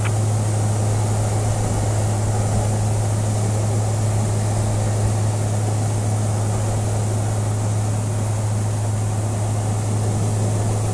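Cabin drone of a Maule single-engine propeller plane in flight: the piston engine and propeller run at a steady pitch, with a strong, even low hum.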